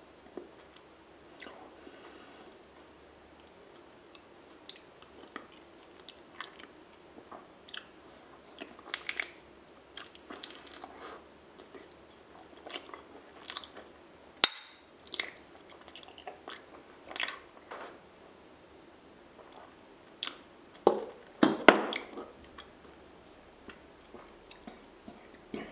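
Close-miked chewing of honeycomb: wet mouth sounds with many short clicks, and a louder run of chewing about 21 seconds in.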